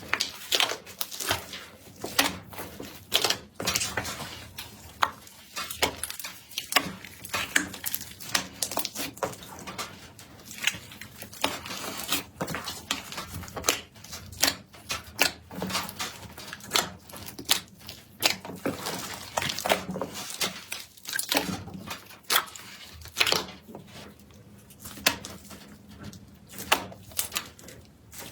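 Slime being pressed, stretched and poked by hand, giving a dense run of irregular crackles, clicks and pops.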